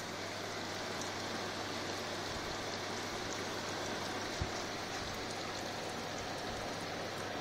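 A running refrigeration unit gives a steady electric hum under an even, rain-like rushing hiss, with one dull thump about four and a half seconds in.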